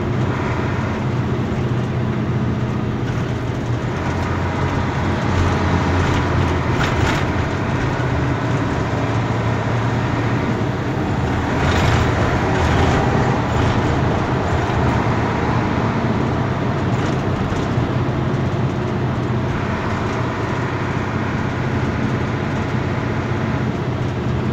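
Truck engine and road noise heard inside the cab while driving: a steady low drone with tyre and wind rush, swelling louder twice, about a quarter and about half way through.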